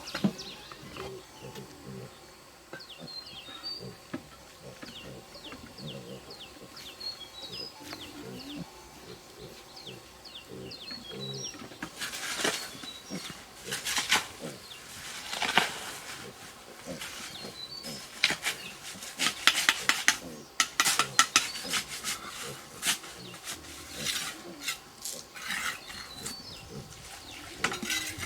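Animal grunts and calls with short high chirps. From about halfway there is a long run of sharp, irregular knocks and scrapes.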